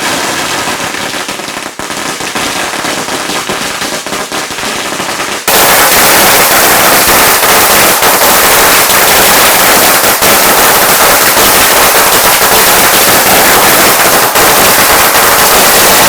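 Consumer fireworks crackling in a rapid, dense string of pops, like a firecracker string. About five and a half seconds in, the sound jumps suddenly to a much louder, continuous dense crackle.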